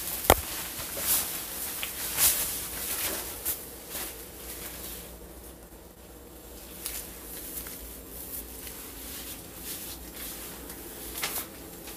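Handling noise from a hand-held phone camera being moved around close to the body: scattered clicks and rustles, the sharpest click about a second in, over a faint steady hum.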